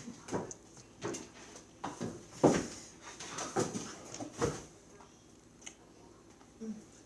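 Butter slime being kneaded and squeezed by hand, giving irregular squishing and popping sounds every half second or so.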